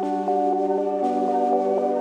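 Slow ambient music: sustained organ-like synthesizer pad tones held in a chord that shifts about a second in.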